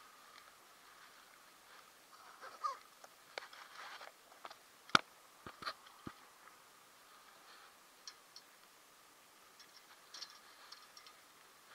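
Faint handling noise from an insulated delivery bag and cardboard pizza boxes: light rustling and a few small clicks. There is one sharp click just before five seconds in, the loudest sound, followed by two or three softer ones.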